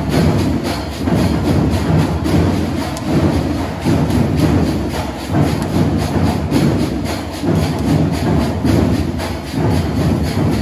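Marching band playing a march, its drums keeping a steady, driving beat under the band.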